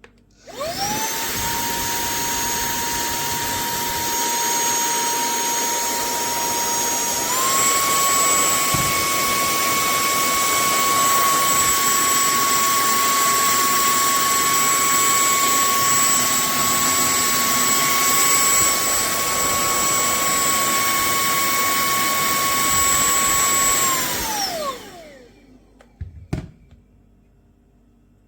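SERVOMASTER cordless handheld vacuum cleaner switched on and running with a steady high whine. About seven seconds in it steps up to its higher speed setting, with a higher, louder whine. Near the end it is switched off and winds down with a falling whine, followed by a couple of clicks.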